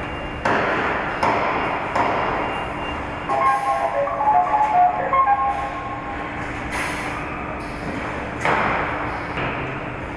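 Car-body assembly-line machinery running: a steady low hum under a wash of factory noise that swells in sudden bursts several times. About three seconds in, a quick run of short beeping tones of changing pitch sounds for about two seconds.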